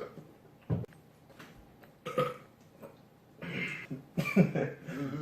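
A person burping several times: a few short burps in the first half, then longer, louder burps near the end.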